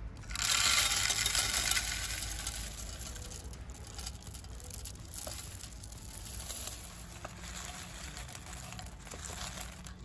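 Sunflower seeds and mixed grains poured from a plastic cup into a wooden bird feeder's tray, a dense hiss and rattle of seed landing on wood and glass. It starts about half a second in, is loudest for the first couple of seconds, then thins to a scatter of falling seeds.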